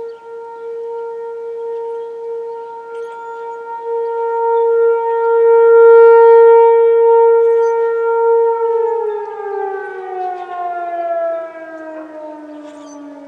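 American Signal T-128 tornado siren sounding one steady, high wail that swells in loudness to a peak about six seconds in. After about eight and a half seconds the pitch starts falling steadily as the siren winds down at the end of the test signal.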